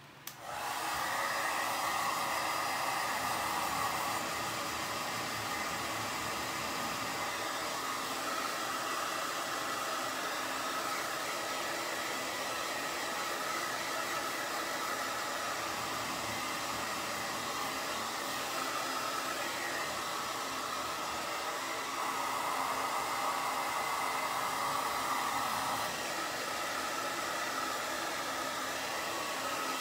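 Handheld hot-air blower switching on and running steadily, drying wet paint on a wooden cutout; its sound swells and dips a little as it is moved about.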